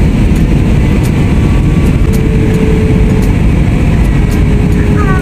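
Steady cabin noise inside an Airbus A320-family jet airliner in flight: the jet engines and air rushing past, heaviest in the low range, with a faint steady hum that comes and goes.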